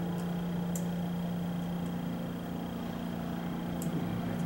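Steady low hum of room noise with a thin high whine above it, and a few faint soft ticks.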